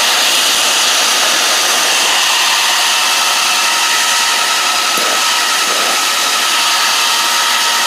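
Handheld gas blowtorch burning with a loud, steady hiss.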